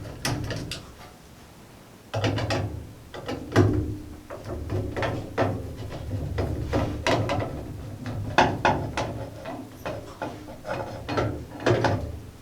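Screwdriver work on a motherboard's plastic CPU-cooler retention clips as they are unscrewed: a run of small, irregular clicks and ticks, with a short lull about a second in.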